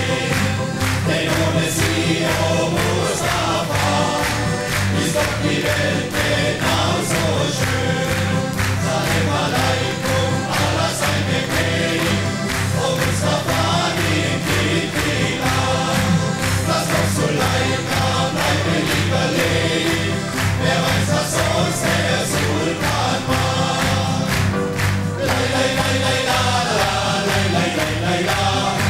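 A men's choir singing a carnival song over band accompaniment with a steady beat.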